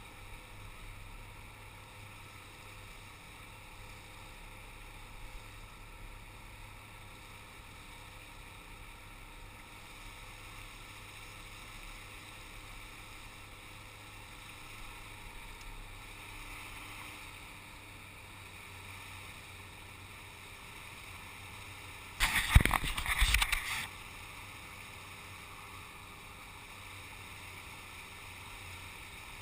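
Calm water lapping faintly and steadily against the hull of an inflatable boat. About 22 seconds in, a loud burst of knocks and rubbing noise lasts about a second and a half.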